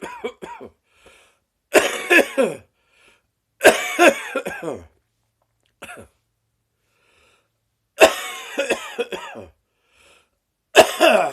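A person coughing in repeated fits: five bursts, each of several coughs in quick succession, with a longer pause about halfway. This is a persistent morning cough that has lasted six weeks.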